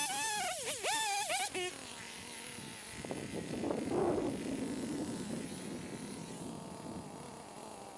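Chainsaw revving in several short bursts that rise and fall in pitch, then dropping back to a quieter idle after about a second and a half, with a brief swell of noise around the middle.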